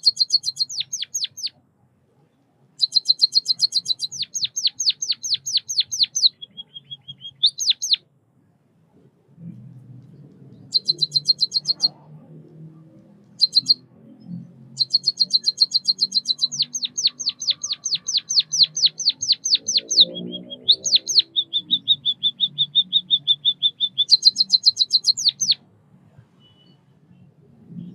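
White-headed munia singing: rapid trills of short high notes in bursts of one to three seconds, separated by brief pauses. The bursts include a lower, steadier trill and a few quick falling notes.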